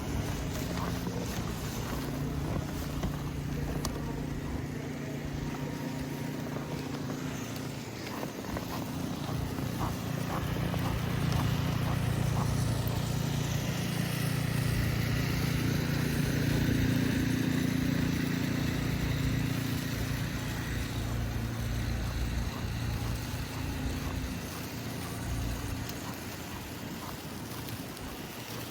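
A motor vehicle engine running with a steady low hum, growing louder from about ten seconds in and easing off near the end, over street noise.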